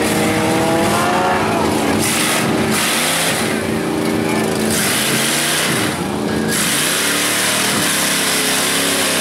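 Big-block Chevy engine of a mega mud truck revving up and down several times as the truck drives through a mud pit. From about five seconds in, a steady rush of tyre and mud noise rides over the engine.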